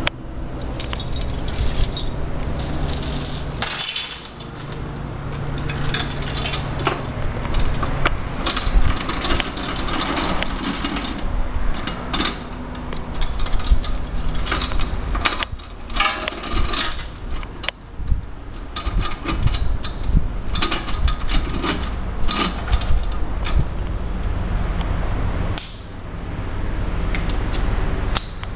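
Metal parts, tools and chains being handled: irregular clinks, clanks and knocks over a steady low hum.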